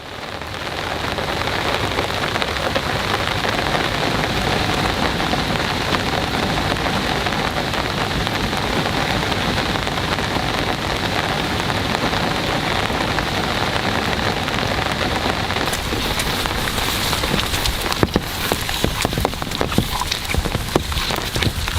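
Steady heavy rain hiss, fading in over the first second. From about 16 seconds in, sharp crackling taps and drips join it.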